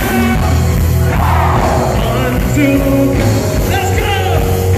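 Live worship band playing: a lead vocalist singing into a microphone over drums, bass and keyboard.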